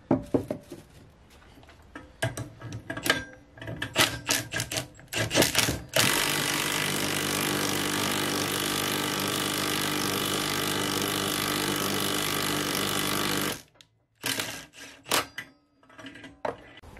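Metal clicks and clanks as a bubble flaring tool is set up in a bench vise. Then a cordless drill runs steadily for about seven seconds, driving the flaring tool's screw to form a bubble flare on a steel fuel line, and stops abruptly. A few more clanks follow.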